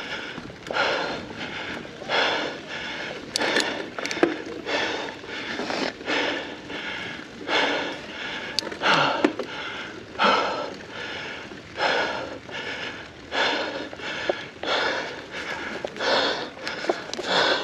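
A cyclist breathing hard under heavy effort on a mountain bike climb: deep, rhythmic breaths, a little more than one a second.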